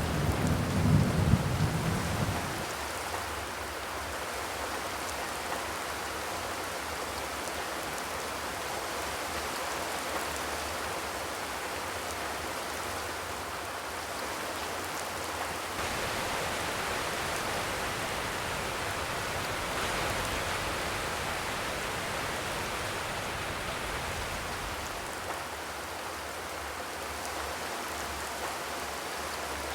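Steady rain falling, an even hiss of drops. A low rumble at the start dies away about two and a half seconds in.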